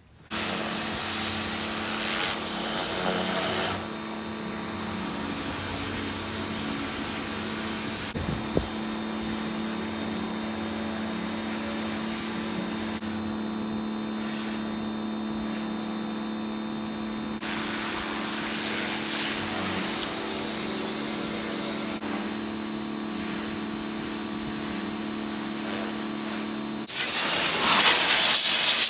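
A motor-driven machine running steadily, a hum under a hissing rush that swells twice. About 27 seconds in the hum stops and a louder hiss takes over.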